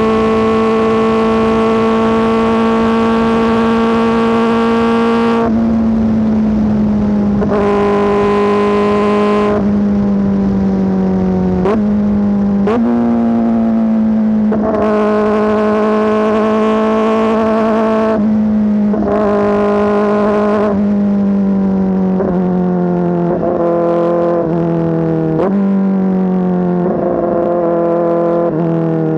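Kawasaki ZX-4RR's inline-four through an SC-Project S1 aftermarket exhaust, loud and running under way. The engine note holds steady for stretches, then drops and climbs again in pitch several times, and steps lower several times near the end.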